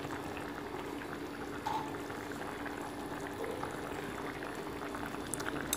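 Pot of fish braising with shallots and pork belly, bubbling at a steady simmer after about half an hour's boiling, with a steady low hum under it.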